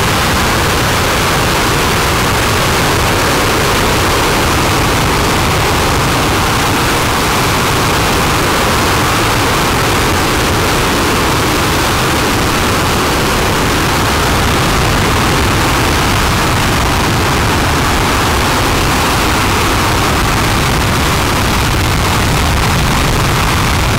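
RS-25 liquid-hydrogen/liquid-oxygen rocket engine firing during a hot-fire test: a continuous rushing exhaust noise that holds an even level throughout.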